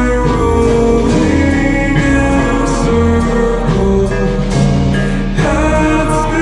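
Music: a slow instrumental passage with sustained pitched tones over changing bass notes, marked by a few short percussion hits.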